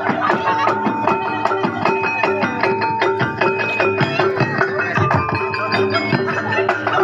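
Javanese jaranan ensemble music: rapid, dense percussion strokes over steady ringing pitched tones.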